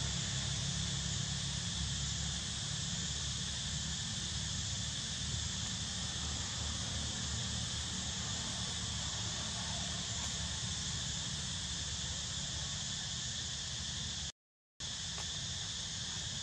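A steady, high-pitched insect chorus, with a low steady rumble beneath it. The sound cuts out completely for about half a second near the end.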